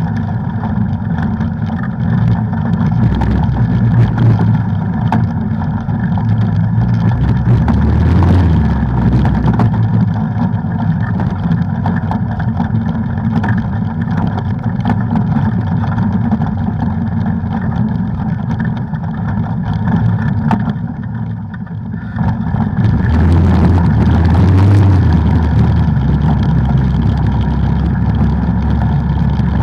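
Off-road ATV engine running under load on a trail ride; the engine eases off about two-thirds of the way through, then pulls back up.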